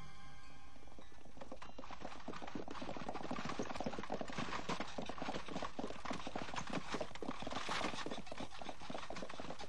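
Horses drawing carts, their hooves clip-clopping in a dense, irregular patter of many strikes that builds from about a second and a half in.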